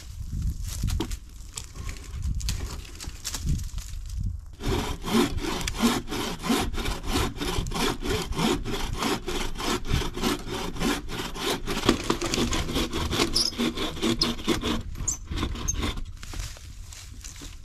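Hand saw cutting through a fallen tree limb in quick, even back-and-forth strokes. The sawing starts about four seconds in and stops about fifteen seconds in.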